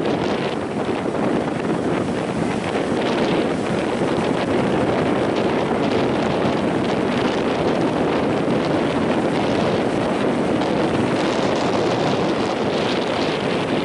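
Strong wind buffeting the microphone over the steady rush of breaking sea waves.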